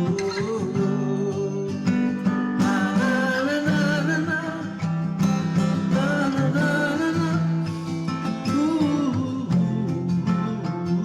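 Acoustic guitar playing a self-composed wordless tune, strummed and plucked chords with a wavering melody line sung or played above them.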